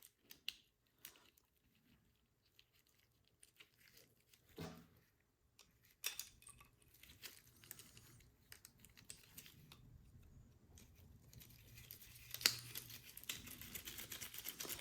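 Faint, scattered clicks and light handling noises of small metal carburetor parts being picked up and fitted back together, with one sharper click near the end.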